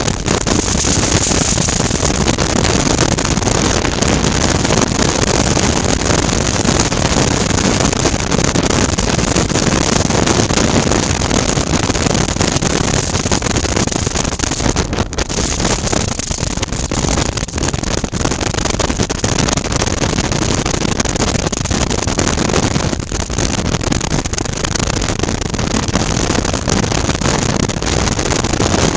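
Steady wind rush on a helmet-mounted microphone over a 2019 Suzuki V-Strom 650's 645 cc V-twin engine running at road speed. The sound eases briefly twice, about halfway through and again about two-thirds of the way in.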